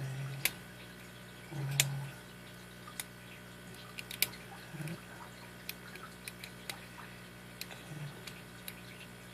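Lock pick and tension wrench working the pins of a five-pin brass Titan padlock: irregular small, sharp clicks and ticks, with a few short low thuds, the loudest about two seconds in.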